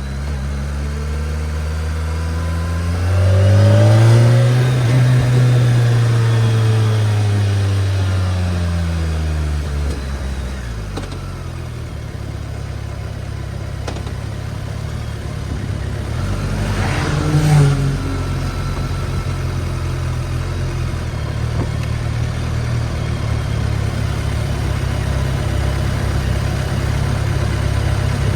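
BMW K1300S inline-four engine under way: the revs climb steeply about three seconds in, the loudest part, then fall away over several seconds. Past the middle there is a short sharp burst with a quick rise and fall in pitch, and then the engine holds a steady cruising note.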